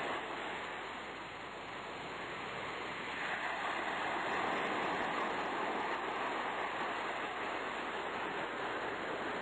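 Rushing hiss of sea surf on the soundtrack, easing a little about a second in and then swelling again.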